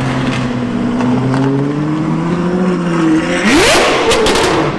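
Ferrari 812 Superfast's naturally aspirated V12 pulling under acceleration, its pitch climbing slowly, then revving sharply upward about three and a half seconds in, with a few sharp cracks near the end.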